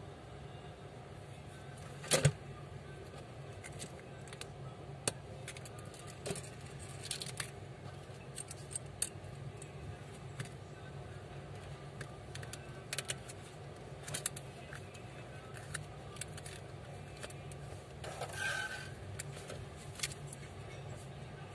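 Scattered small clicks, taps and light scrapes as a smartphone's replacement display and frame are handled and pressed together by hand. A sharper click comes about two seconds in, and a longer scrape comes near the end.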